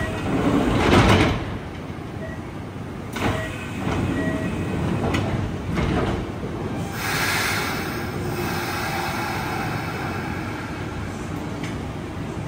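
Electric commuter train at a station platform: its sliding doors close with a loud thud about a second in, with short repeated beeps and a few knocks after it. From about seven seconds in, a steady hiss and the running train carry on.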